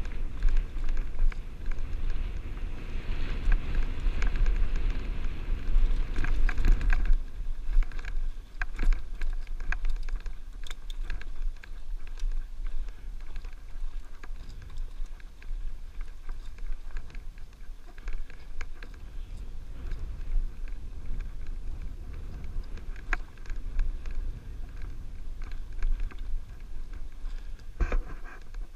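Wind buffeting a helmet-mounted camera's microphone as a mountain bike rolls over slickrock, with tyre noise and frequent sharp knocks and rattles from the bike over bumps. It is louder and busier for the first seven seconds or so.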